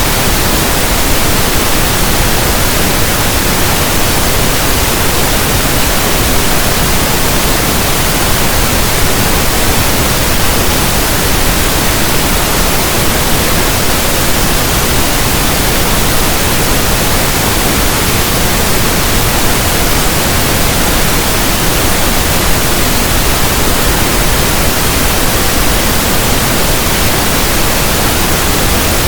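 Pink noise: a loud, steady hiss spread evenly across all pitches, like static from a radio tuned between stations, with no change.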